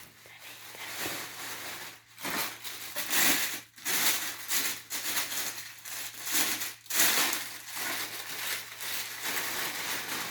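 Plastic and paper packaging rustling and crinkling in irregular bursts as it is pulled out of a cardboard box.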